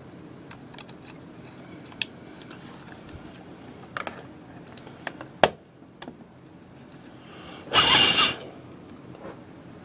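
Handling noise from hand work with tools and wire: scattered small clicks and knocks, one sharp click just past five seconds, then a louder scraping rustle lasting under a second about eight seconds in.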